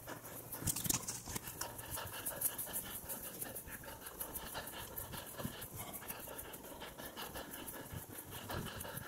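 A hiker breathing hard while walking up a steep grassy slope, with irregular rustles and footfalls.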